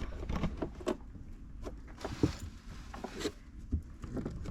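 Scattered light knocks and rubbing of a wooden window frame being worked into a tight window opening, a few taps about a second apart over a faint low hum.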